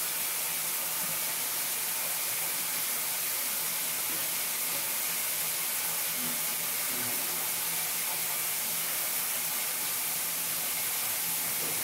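Shower spray running steadily: an even, constant hiss of water.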